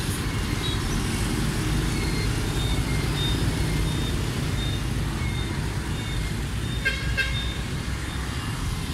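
Steady rumble of motorbike and truck traffic passing through a roundabout. A series of short, high beeps repeats a little under twice a second, and two short horn toots sound close together about seven seconds in.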